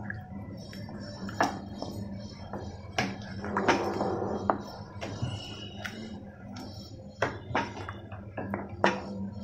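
Wooden spatula stirring thick curry gravy in a pan, scraping and knocking against the pan's sides and bottom in irregular clacks.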